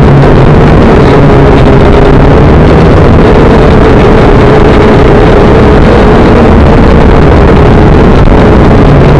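Motor and propellers of a small radio-controlled aircraft, heard close up from its onboard camera: a loud, steady whine over a constant hum, hard enough to distort.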